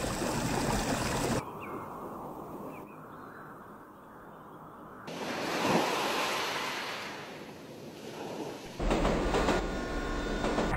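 A sequence of separate sounds: a shallow stream running over stones, then about five seconds in a wave surging up a sandy beach and draining back, then near the end a diesel freight train rumbling past.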